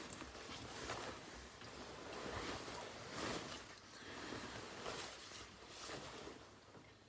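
Irregular rustling and crinkling of paper hang tags and parka fabric being handled, as the labels are folded and tucked into a small inside pocket.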